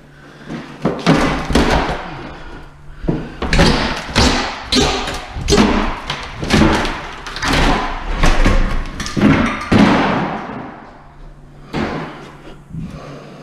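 A run of heavy bangs and thuds, about one every half-second to second, as a kitchen countertop with its stainless steel sink is knocked loose from the cabinets and dropped onto a pile of demolition debris. They stop about ten seconds in, and a few lighter knocks follow near the end.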